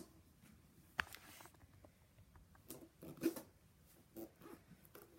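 A few short, quiet squeaky sounds from a foot rubbing on the floor, with a sharp click about a second in and a cluster of squeaks around three seconds.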